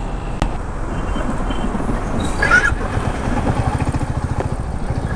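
Royal Enfield Meteor 350's single-cylinder engine running with a regular low exhaust beat while the motorcycle is ridden. A brief higher-pitched sound comes about two and a half seconds in.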